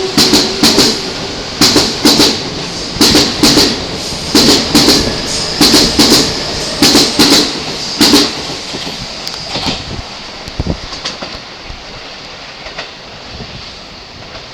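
JR electric commuter train running over rail joints, its wheelsets clacking in quick groups of two or three about every one and a half seconds. The clacking stops about 8 s in as the last car goes by, a few fainter clacks trail off, and the train's sound fades away.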